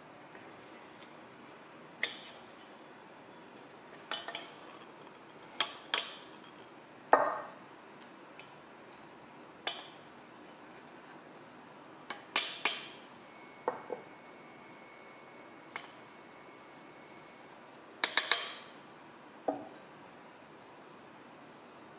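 Glass bowls and a wire-mesh sieve clinking and tapping against a glass mixing bowl while dry flour is tipped in. About a dozen short, sharp knocks come at uneven intervals, some in quick pairs or triples.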